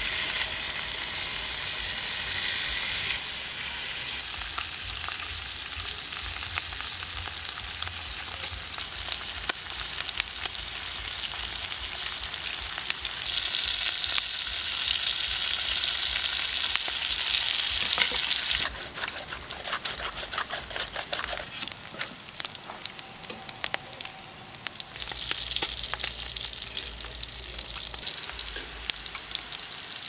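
Pork belly with onion and mushrooms sizzling and spitting in oil in a frying pan over a gas burner, with the clicks and scrapes of metal tongs turning the pieces. The sizzle swells and softens several times.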